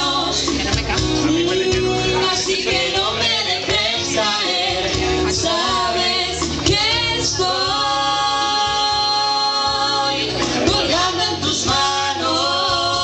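Music with singing in women's and men's voices, with long held notes about halfway through and again near the end.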